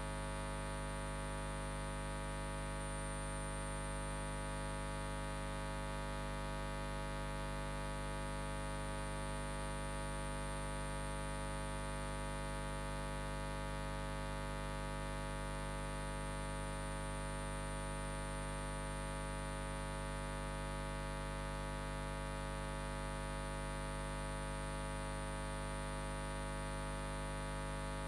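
Steady electrical mains hum and buzz, a constant tone with many overtones.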